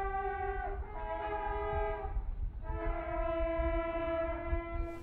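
Music of slow held chords, each lasting one to two seconds and changing three times, with horn-like tones from an old, muffled recording over a low rumble.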